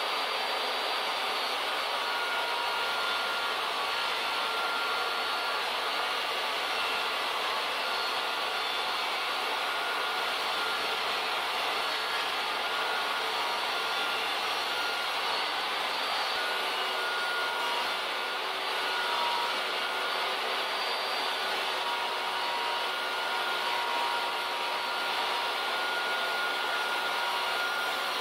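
Table saw running steadily while a wooden panel is ripped through it, a constant motor whine and rush that barely changes.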